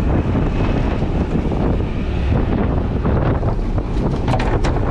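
Stormy wind buffeting the microphone, a dense, steady low rumble, with a couple of short sharp knocks near the end.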